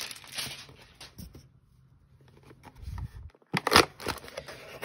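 A cardboard trading-card hanger box and its plastic wrap being handled. A faint rustle dies away, there is a quiet stretch, and then a few sharp crinkles and clicks come about three and a half seconds in.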